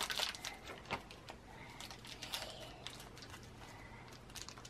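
Faint, irregular crinkling and crackling of a small plastic blind-bag wrapper being handled and pulled open, with a few louder crackles in the first second.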